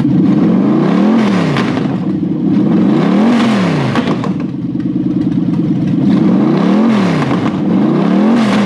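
Toyota 1UZ-FE 4.0-litre V8 running on an engine stand and revved four times, each time rising in pitch and falling back to idle. This engine has a burnt valve on number 7.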